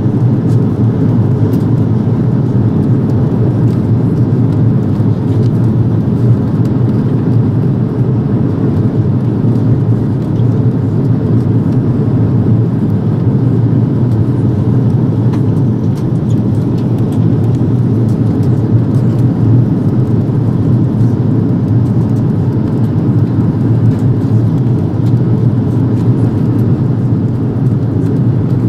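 Airbus A330-200 airliner cabin in flight: a steady, unchanging low rush of airflow and jet engine noise heard inside the cabin at a window seat.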